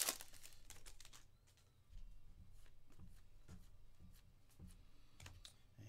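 A crinkle of a foil card-pack wrapper right at the start, then faint, scattered clicks and rustles of 2022 Panini Contenders football cards being slid and flipped through the hands one by one.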